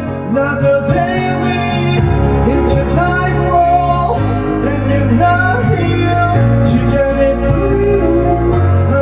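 A man singing a slow English-language song into a karaoke microphone over the karaoke machine's backing track.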